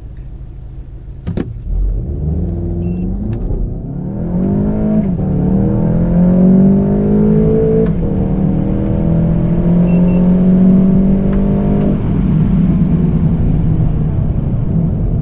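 Volkswagen Golf GTI Performance's 2.0-litre turbocharged four-cylinder accelerating flat out from a standstill, heard from inside the cabin. It runs low for about two seconds, then launches and climbs in pitch, with quick drops at the upshifts about five and eight seconds in, and holds a steady pitch in third gear near the end.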